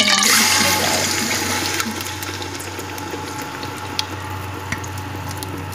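Wet ground onion-tomato-yogurt masala paste poured into hot oil in a metal cooking pot: a loud rushing hiss and sizzle in the first second that gradually dies down, with a few light clicks.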